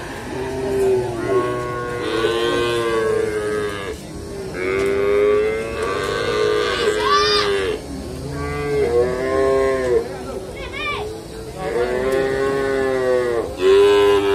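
Pegon calves bawling, one long call after another, several overlapping at times, with fairly high-pitched voices.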